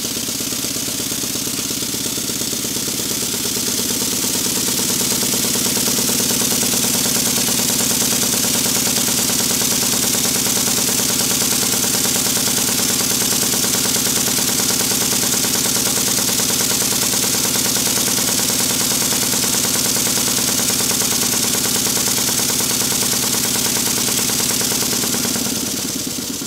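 Stuart model beam engine running fast on compressed air: a steady hiss of exhausting air over a rapid beat from the piston, valve gear and beam linkage. It picks up speed over the first few seconds and dies away just before the end.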